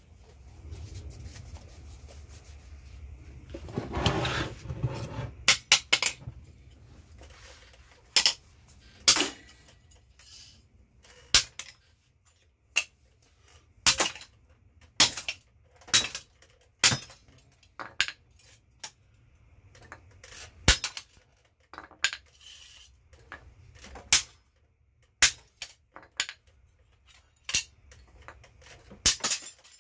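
Metal tools clinking and tapping against the metal parts of a massager being tapped and pried apart, in sharp irregular knocks about once a second. A longer scraping rattle comes about four seconds in.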